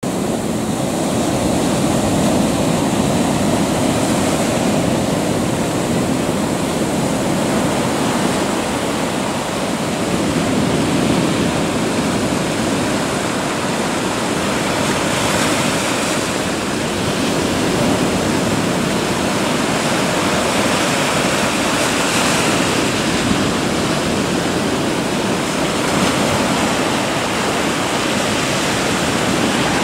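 Sea surf: waves breaking and foam washing up the beach in a continuous rush of water, swelling louder every few seconds as each wave breaks.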